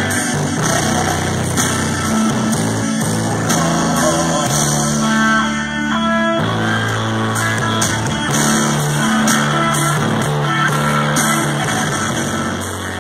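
Brazilian gospel music with guitar and a steady bass line, played loud through a pickup-bed car audio rig of four woofers, midrange drivers and horn tweeters. It starts to fade out near the end.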